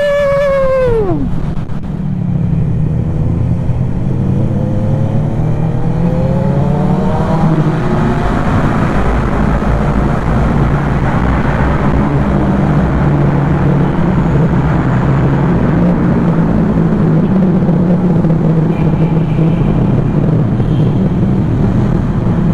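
Motorcycle engine on the move: a falling whine in the first second, then the engine note climbing steadily as the bike accelerates, settling into steady running at speed with a low rumble and rushing noise.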